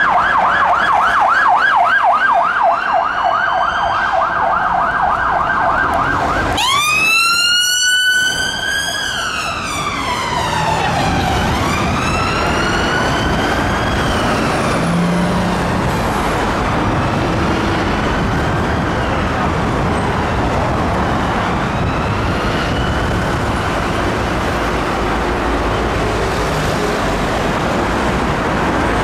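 An unmarked police Volvo V50's siren on yelp, a fast repeating warble, for about the first six seconds. After a cut, a London Ambulance Mercedes-Benz Sprinter's Whelen Beta siren on wail, rising and falling slowly and growing fainter as the ambulance moves off, over steady road traffic noise.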